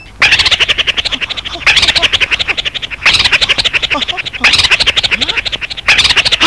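A loud, rapid scratchy rattle of about fifteen clicks a second, starting over five times at even intervals of about a second and a half.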